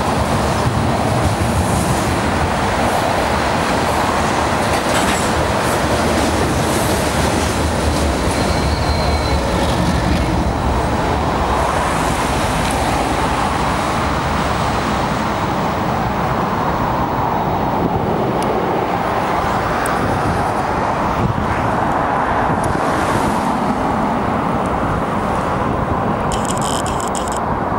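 Freight train running along the track: a steady rumble of wheels on rail and locomotive noise.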